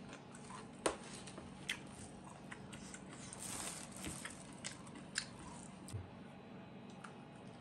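Close-up eating sounds: chewing and biting, with a series of short sharp clicks and soft squishes as rice and fish paste are mixed and eaten by hand.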